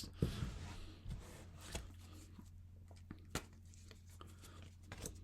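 Tarot cards being handled on a table: a soft rustle, then a few scattered light taps and clicks, over a faint low steady hum.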